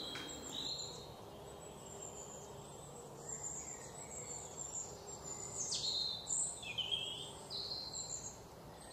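Faint birds chirping and whistling, in short high calls, some of them sliding down in pitch, over a low room hum.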